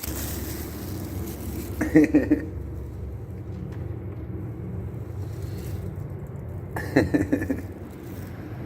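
Steady low outdoor rumble, like traffic noise, with two short voice-like sounds breaking in, one about two seconds in and one about seven seconds in.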